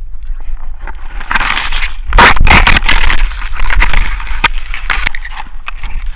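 Dry reed stems scraping and crackling against the hull of a folding plywood boat as it is pushed through a reed bed, with scattered snaps; loudest from about two to three seconds in, easing off after about five seconds.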